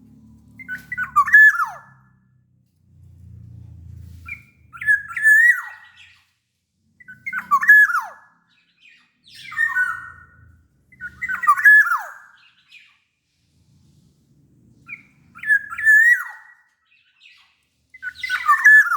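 Black-naped oriole (kepodang, Sumbawa form) singing: seven short phrases, each with a slurred note that drops in pitch at the end, repeated every two to four seconds.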